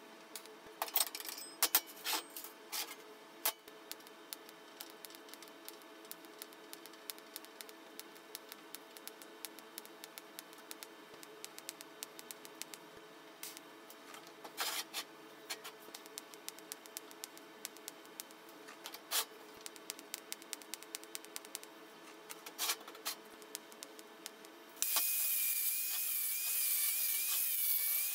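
Electric angle grinder starting up about 25 seconds in and grinding the edge of a sheet-steel plate for about three seconds, a loud rasping noise with a wavering whine. Before it, only a low steady shop hum with scattered clicks and taps.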